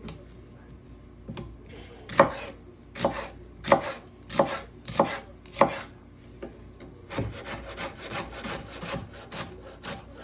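Kitchen knife chopping garlic on a cutting board: about six slow, firm chops, then quicker, lighter chopping at about three to four strokes a second.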